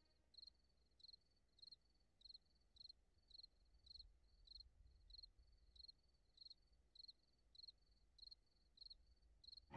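Faint cricket chirping in a steady rhythm, short high chirps about three every two seconds, as night ambience.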